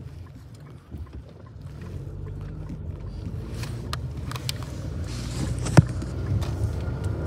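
Low steady rumble of a car's cabin, growing louder from about two seconds in, with a few light clicks and taps and one sharp click a little before the end.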